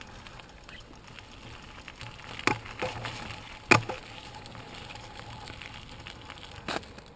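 Mountain bike riding down a dirt forest trail, heard from a handlebar-mounted camera: steady tyre and rolling noise with three sharp knocks as the bike jolts over the trail, the loudest a little past halfway.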